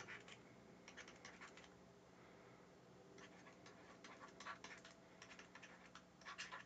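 Faint scratching and tapping of a stylus on a pen tablet as words are handwritten, in short clusters of strokes with brief gaps, over a faint steady hum.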